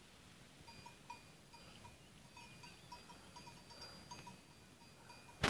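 Faint, irregular clinking of distant goat bells, short ringing notes a fraction of a second apart. A sharp click comes near the end.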